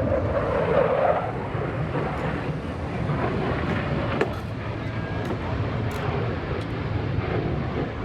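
Jet noise from an F-35C Lightning II's single turbofan engine, a steady low rumble that swells briefly in the first second.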